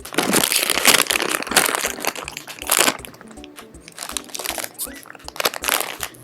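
Plastic packaging crinkling and crackling as it is handled and pulled open, busiest in the first three seconds, over background music with a steady beat.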